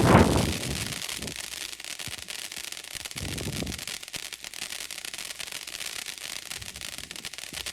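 Consumer firework fountain burning: a steady spraying hiss dotted with small crackles. A muffled thump opens the sound, and a softer one comes about three seconds in.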